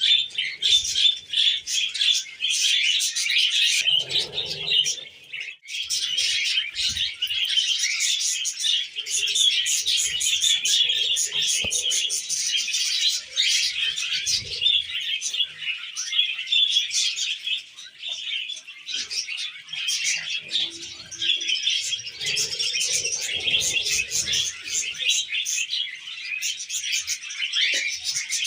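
Budgies chattering, a dense unbroken stream of rapid high chirps.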